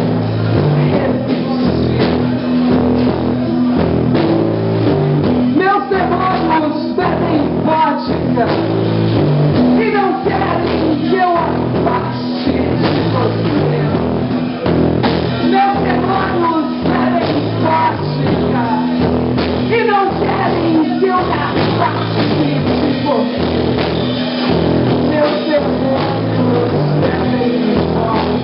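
A blues band playing, with electric guitar, bass and drum kit, and a woman's voice delivering the lyrics over it.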